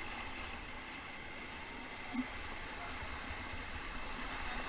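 Steady rush of whitewater from river rapids around a raft, with one brief short sound about two seconds in.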